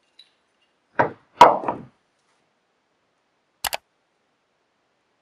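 Small plywood squares and a steel square handled on an MDF workbench: three quick wooden knocks about a second in, the middle one loudest, then a sharp double click near the end.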